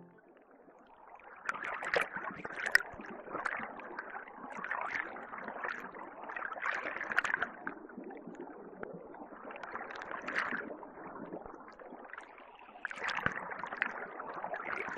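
Water gurgling and trickling, with small splashes and clicks, swelling and fading every second or so; it starts about a second and a half in.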